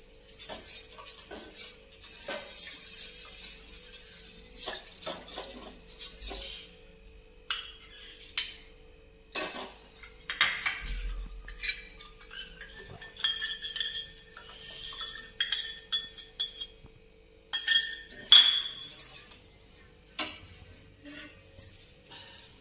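Steel ladle stirring custard powder mixture into hot milk in a stainless steel saucepan: scraping with repeated clinks and knocks of metal on metal. A few louder ringing clanks come in the second half.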